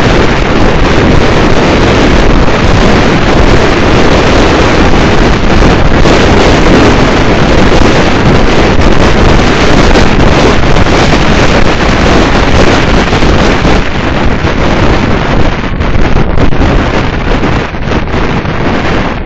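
Loud, steady wind rushing over the microphone of a camera on a moving car, with the car's road noise beneath.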